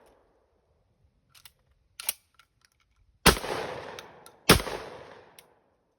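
Two 12-gauge shotgun shots from a Panzer Arms EG200, about a second apart, each with a long echoing tail, fired with 8-shot birdshot loads. A few light clicks come before them.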